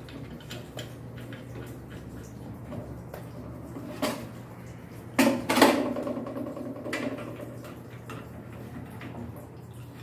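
Washing machine parts being handled during reassembly: small metallic clicks and knocks, and a louder ringing metal clank about five seconds in, over a steady low hum.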